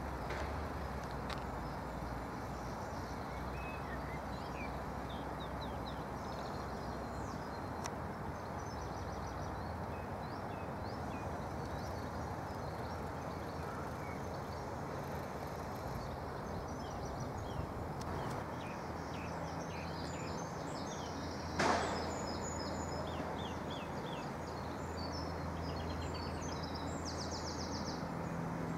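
Steady low drone of a parked Colas Rail Class 70 diesel locomotive idling, with birds chirping over it. A single sharp knock comes about two-thirds of the way through.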